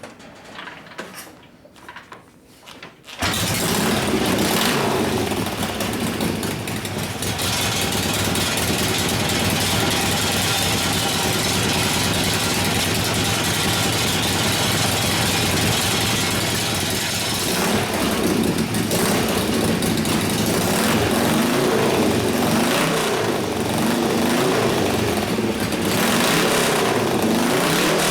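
Harley-Davidson Ironhead Sportster V-twin engine cutting in suddenly about three seconds in and running loudly in gear on a stand, rear wheel spinning free. In the second half the pitch wavers up and down as throttle is worked to load the freshly rebuilt motor and warm it up.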